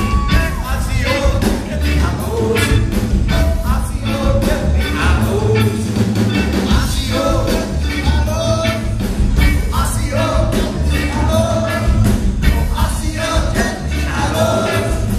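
Live rock band playing: drum kit keeping a steady beat, electric guitar and keyboard, with a man singing lead into a microphone.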